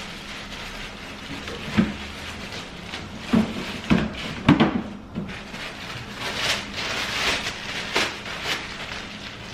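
A handful of light knocks and clunks, with rustling in between, as objects are handled and set down.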